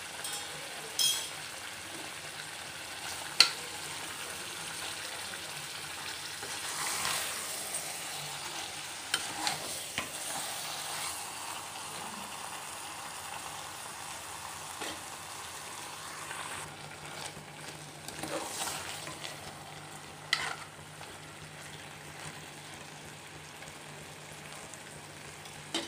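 Masala-coated chicken sizzling as it fries in an aluminium pressure-cooker pot, being sautéed until the oil separates. A steady sizzle runs under it, with occasional sharp clinks and scrapes of a metal spoon against the pot as it is stirred. The sharpest clink comes about three seconds in.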